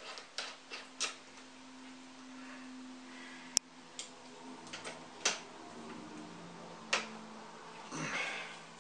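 Scattered light clicks and knocks of metal parts being handled as a chainsaw bar and chain are fitted onto an angle-grinder conversion bracket, with one sharp click about three and a half seconds in. A faint steady hum runs underneath, and there is a rustle of clothing near the end.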